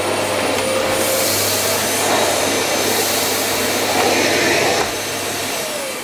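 Vax C89MAB Mach Air multicyclonic cylinder vacuum cleaner running steadily as its floor head is pushed over carpet, sucking up scattered debris. About five seconds in it is switched off and the motor winds down, its whine falling in pitch.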